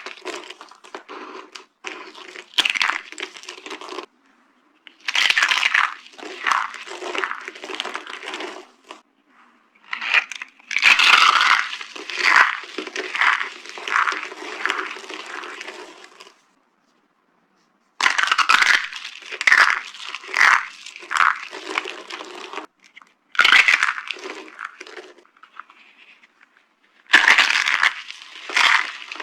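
Dry soap crunching and crackling as it is crushed, in bursts of a few seconds broken by short silences.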